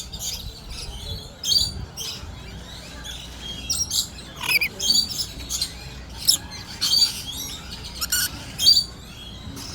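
A flock of lorikeets chattering, with short, high, screechy calls repeating every second or so, some sliding down in pitch.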